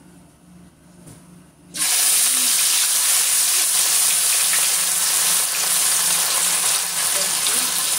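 Dried omena, small silver lake sardines, hitting hot cooking oil in a frying pan: about two seconds in the oil suddenly erupts into loud, steady sizzling, which keeps up as the fish are stirred with a spatula.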